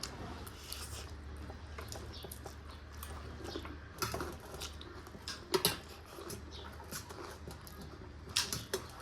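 People eating instant noodles: soft chewing and slurping with scattered sharp clicks, the loudest about four, five and a half and eight and a half seconds in, over a steady low hum.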